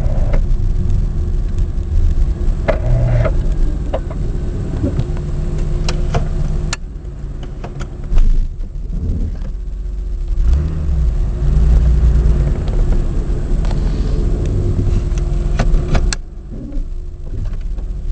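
1994 Chevy Lumina Euro's 3.1 V6 engine running roughly, its idle unsteady and jumpy, rising and sagging, with two dips in level and a sudden loud surge about eight seconds in. This is typical of the car's unexplained rough idle and surging, which the owner suspects is an electrical fault, a clogged catalytic converter or the fuel pump.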